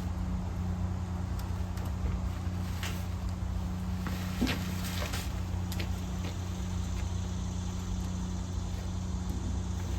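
A motor running with a steady hum, with a few light clicks or knocks partway through.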